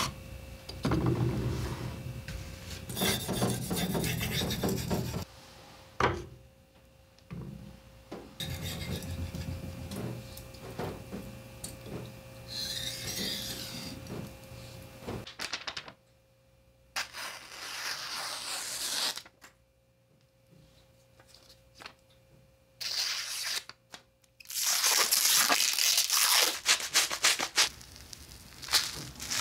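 Steel knife blade being sharpened by hand on a wet waterstone: repeated scraping strokes in several stretches, broken by abrupt cuts and quieter gaps. Near the end a soapy sponge scrubs the blade clean.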